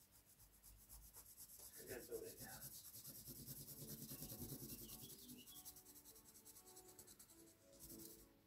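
Faint scratching of a pencil shading on paper in many quick repeated strokes.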